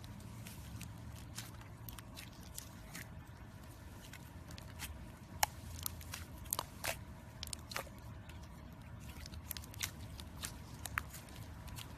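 Slime being squeezed and worked by hand, giving irregular small clicks and crackling pops over a low steady hum.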